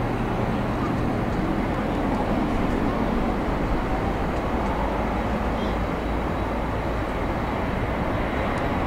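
Boeing 777-300ER's GE90-115B turbofan engines running steadily at low taxi thrust, an even jet rumble as the airliner turns onto the runway.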